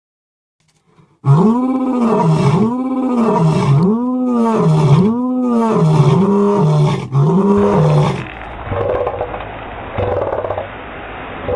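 Scutosaurus roar sound effect: after about a second of silence, six loud calls in a row, each rising and falling in pitch. About eight seconds in, these give way to duller, lower growls that pulse roughly once a second.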